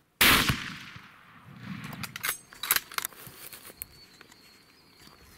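A single loud rifle shot that dies away over about a second, followed by a few scattered sharp clicks and clatter.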